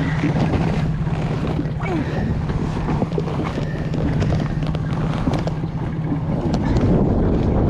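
A boat's engine running with a steady low drone, under wind buffeting the microphone and scattered knocks.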